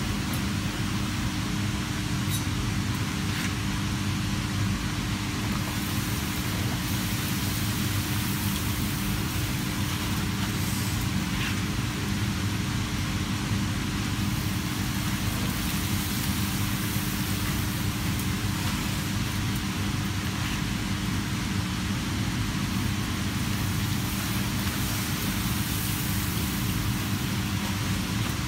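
Plain pappadoms deep-frying in a pan of hot oil: a steady sizzling hiss that grows fuller about six seconds in, over a constant low machine hum.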